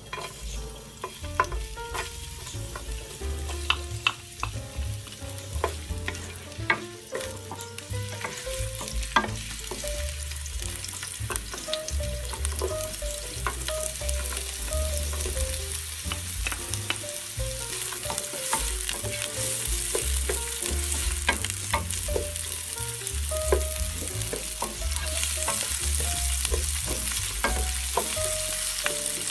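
Chopped garlic and onion sizzling in hot oil in a nonstick pan, with frequent sharp clicks and taps as pieces drop in and are stirred. The sizzle grows louder toward the end.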